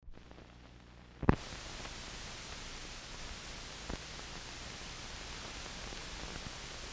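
Steady hiss of an old film soundtrack. It starts with a sharp click a little over a second in, and a softer pop comes a few seconds later.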